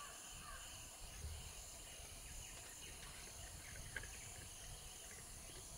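Faint natural ambience: insects drone steadily at a high pitch, with a few faint bird chirps and one small splash of water about four seconds in.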